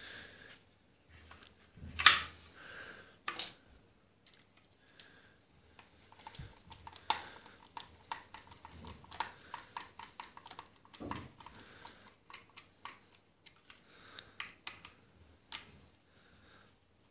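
Wooden parts of a replica SVT-40 rifle knocking and clicking as they are handled and fitted together. There is a sharp knock about two seconds in, then a run of small clicks and taps, with further knocks near three and eleven seconds.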